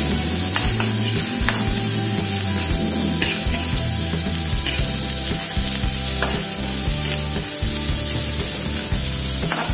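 Hot oil sizzling steadily in a non-stick wok while a metal spatula stir-fries sliced chilies, shallots and garlic, scraping and clicking against the pan now and then.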